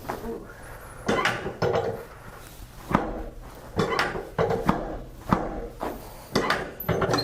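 Irregular knocks and thumps from hands-on chiropractic work on a patient's body, roughly one or two a second.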